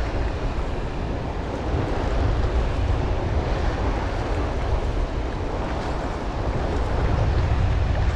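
Wind buffeting the microphone over the wash of choppy sea water against a concrete breakwater: a steady rumbling rush that grows a little louder near the end.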